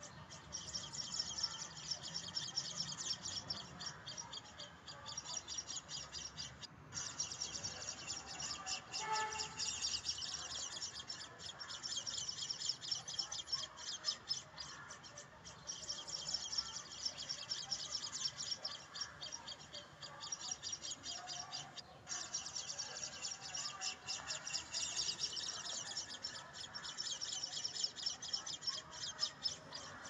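House sparrows chirping in fast, high-pitched, almost unbroken chatter, breaking off briefly twice.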